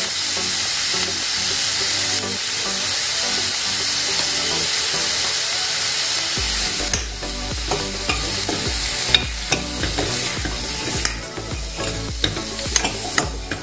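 Sliced radish sizzling as it is sautéed in hot oil in a pressure cooker, stirred with a spoon. The sizzle is steady for about six seconds, then drops lower, with the spoon clicking against the metal pot several times.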